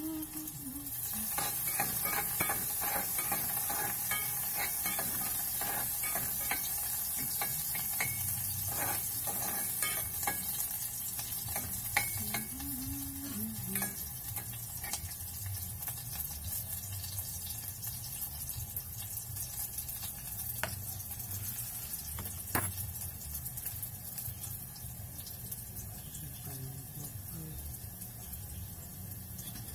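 Chopped meat frying in a hot pan, sizzling steadily, while a utensil stirs it with light clicks and scrapes against the pan. The sizzle comes up about a second in.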